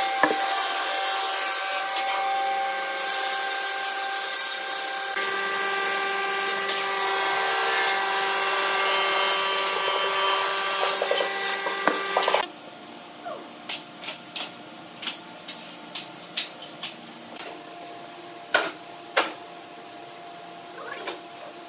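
A machine runs steadily with a whine, then cuts off suddenly about twelve seconds in. After that come light, irregular taps and scrapes of a pencil and steel ruler marking lines on a pine block.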